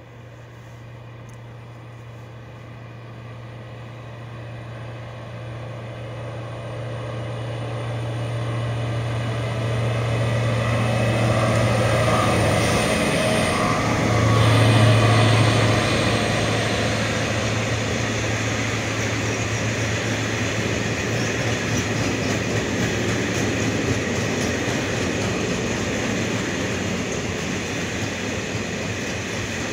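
BB 75000-class diesel-electric locomotive approaching and passing with a train of cereal hopper wagons. Its engine note grows steadily louder and peaks as the locomotive goes by about halfway through, then gives way to the steady rumble of the wagons rolling past.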